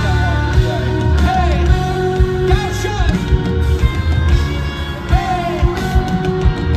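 Live pop concert music played loud over an arena sound system: a band with a pounding bass beat and a voice singing or calling out over it.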